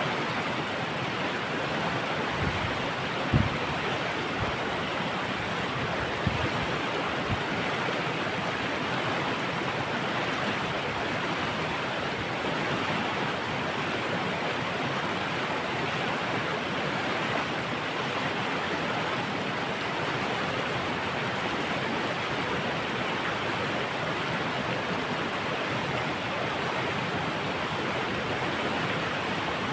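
Water rushing steadily over a dam in a forest stream. A few short low thumps come in the first several seconds, the loudest about three seconds in.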